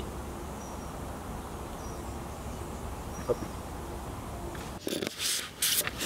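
Steady low outdoor background noise on a river bank while bait is threaded onto a hook. Near the end come a few short clicks and rustles of handling.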